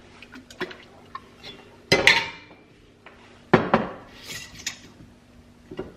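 Glass jars and dishes clinking and knocking as they are handled in a kitchen, with two louder knocks about two seconds and three and a half seconds in, the first ringing briefly.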